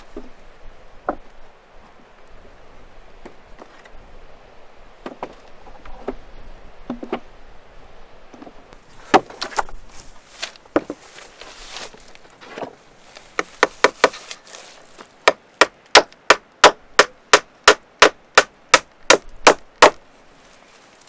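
Scattered knocks, then a quick, even run of about fifteen sharp blows, roughly three a second, in the second half: a hand tool striking wood.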